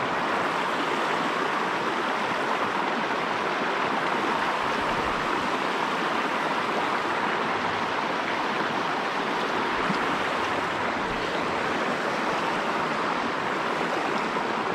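Steady rushing of a shallow river running over rocky riffles, an even continuous water noise with no breaks.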